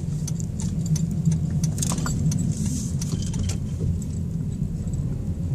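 Steady low engine and road rumble heard inside a slowly moving Jeep's cabin, with scattered light clicks and jingling rattles over it.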